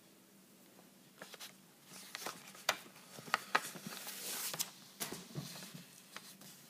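Handling noise of paper and the recording setup being moved: rustling with a string of sharp clicks, busiest in the middle, dying away near the end.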